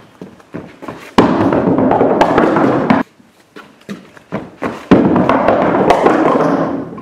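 A bowling ball dropped onto wooden barn floorboards with a thud and rolling along them with a loud rumble, twice: about a second in for some two seconds, then again about five seconds in until near the end, when it reaches the pins. Light knocks and footsteps on the boards between the rolls.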